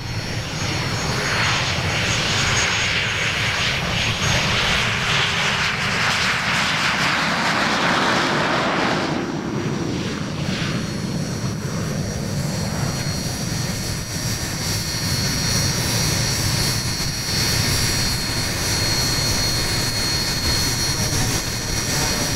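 Fouga CM.170 Magister's twin Turbomeca Marboré turbojets at takeoff power during the takeoff run and climb-out: a steady high whine over a rushing roar. The roar is strongest for the first nine seconds or so, then thins as the jet lifts off and moves away.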